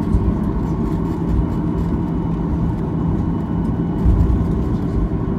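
Cabin noise inside a Boeing 737-900 taxiing on the ground: its CFM56-7B jet engines running at idle with a steady hum over a low rumble, which swells briefly about four seconds in.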